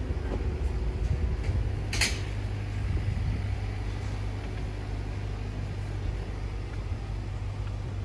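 Steady low rumble of city traffic, with a sharp click about two seconds in.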